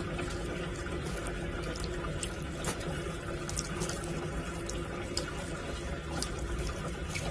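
Steady running water, like a tap, with scattered small clicks and splashes.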